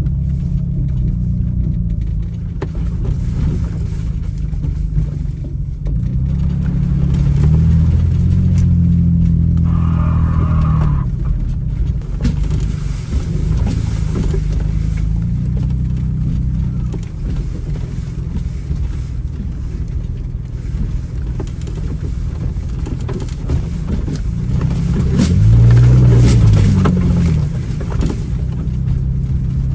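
A vehicle engine running throughout, its pitch rising and falling a few times, loudest about 8 seconds in and again about 26 seconds in.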